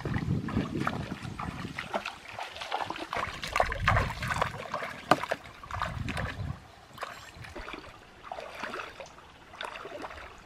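Legs wading through a shallow stream: irregular splashes and sloshing water with each step, over the faint trickle of the stream.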